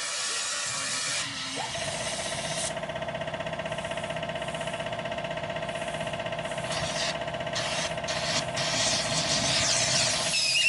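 Homemade flamethrower lance spraying burning fuel into an oil drum: a loud hiss for the first couple of seconds, then a steady whistling whine with a fast flutter.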